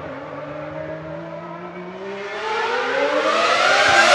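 1995 Ferrari 412 T2 Formula One car's 3.0-litre V12 engine accelerating toward the listener, its note rising steadily in pitch and growing much louder in the second half.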